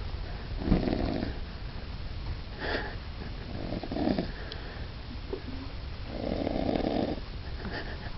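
Snoring: about four separate snores, the last and longest coming about six seconds in.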